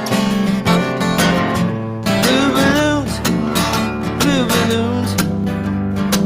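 Acoustic guitar strummed in a steady rhythm, with a voice starting to sing over it about two seconds in.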